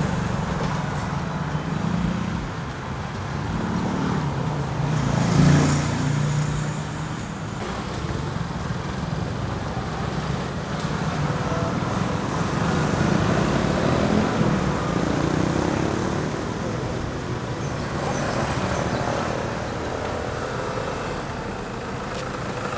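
Road traffic running steadily, with a louder vehicle passing about five seconds in and a single sharp click about ten seconds in.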